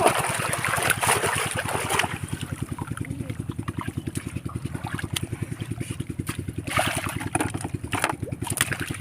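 Small engine running steadily with a rapid, even low pulse, with water splashing over it at the start and again near the end.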